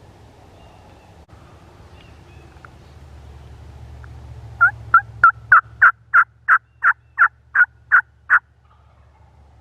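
Turkey yelping: a run of about a dozen evenly spaced yelps, about three a second, starting about halfway through, the first few softer.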